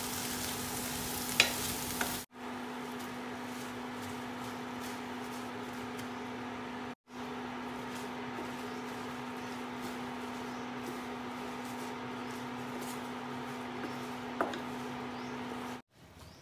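Black beans, onion and Thai basil sizzling in a stainless steel frying pan while being stirred with a wooden spatula, over a steady hum. The spatula knocks sharply against the pan about a second and a half in and again near the end, and the sound cuts out briefly twice.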